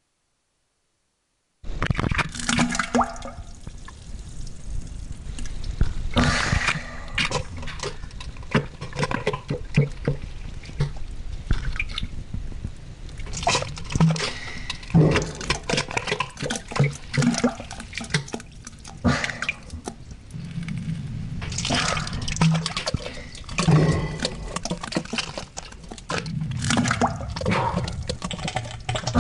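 Sound effect of defecation: irregular wet splattering, plopping and dripping with short low spluttering blasts, starting about two seconds in and going on in uneven bursts.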